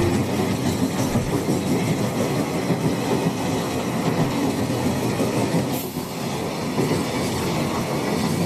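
Container freight train wagons rolling past close by, a steady rumble with the wheels clattering on the rails.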